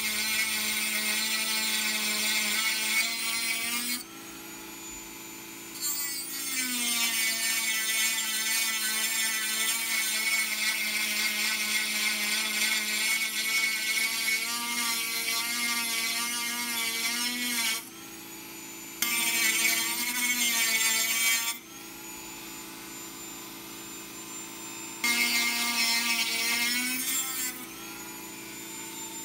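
Dremel rotary tool running with a steady high whine and grinding into an aluminium AR-15 handguard clamp. The sound turns loud and harsh during long stretches of cutting and eases back to the tool's plain whine between them, several times.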